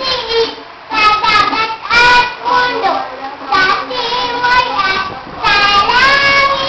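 A child singing a song in a high voice, with phrases of held notes that slide between pitches.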